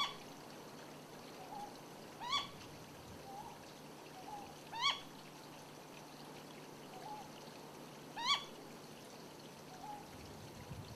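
Ryukyu scops owl calling: four loud, short notes, each rising sharply, spaced about two and a half to three and a half seconds apart. Fainter, lower short calls come in between, over a steady background hiss.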